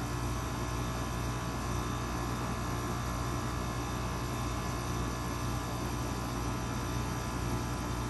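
2004 Goodman PHKJ042 3.5-ton packaged heat pump running steadily in cool mode, its compressor and condenser fan giving a constant hum with an even rushing noise over it.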